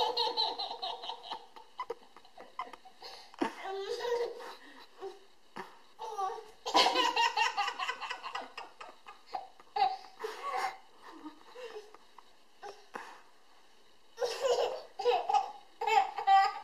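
A toddler laughing in several bouts of belly laughter, short runs of choppy 'ha-ha' pulses with quiet pauses between, loudest about seven seconds in and again near the end.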